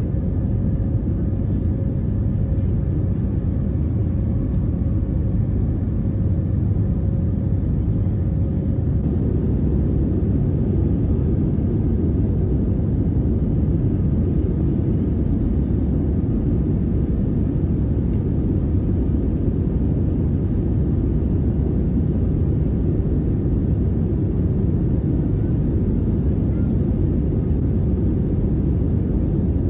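Steady low rumble of an Airbus A320neo's engines and airflow heard inside the cabin in the climb-out after takeoff.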